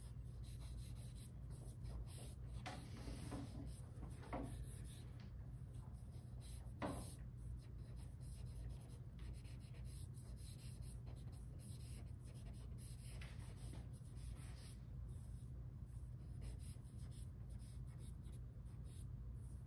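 Faint scratching of a drawing stick stroking across paper on a drawing board, in short irregular strokes, over a low steady hum.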